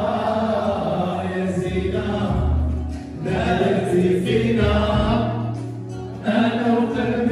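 Music with many voices singing together in chorus.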